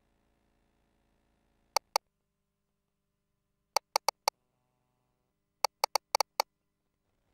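Sharp, short key clicks from an ultrasound console's controls, in three quick clusters: two, then four, then six, as the scan image is frozen and a text label is entered. A faint steady machine hum lies underneath.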